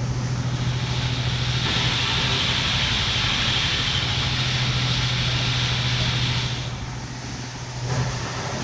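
An engine running steadily with a low hum. A hiss lies over it from about a second in until near the seventh second, then drops away.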